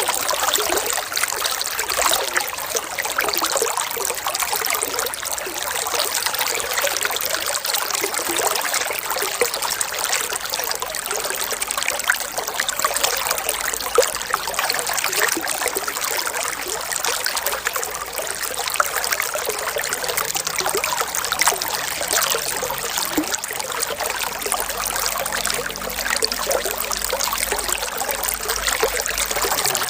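Water trickling and babbling steadily, with many small splashes.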